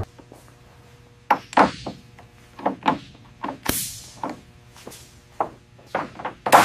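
A run of short, sharp metallic clanks and clicks of tool work, about a dozen at irregular spacing, over a faint steady hum.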